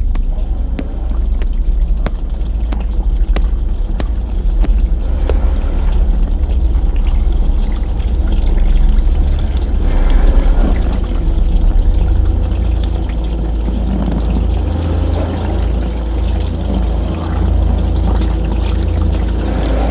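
Water pouring and sloshing over a heavy, steady low rumble, like a dishwasher running through its wash; the water noise grows louder about halfway through.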